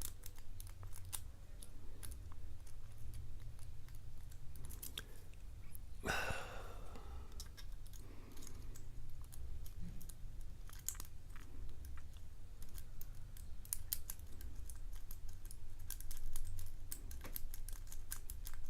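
Lock pick and tension wrench clicking and scraping against the pins inside a padlock's keyway as it is picked, in small irregular ticks. About six seconds in there is one louder, ringing metallic scrape. A steady low hum lies under it all.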